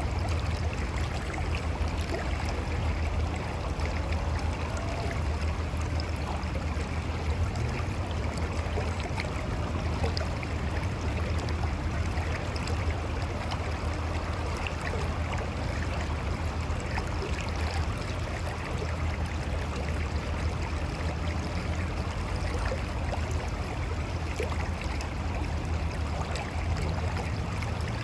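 Mountain river flowing and tumbling over rocks, a steady rush of water with a deep low rumble and small splashes and gurgles running through it.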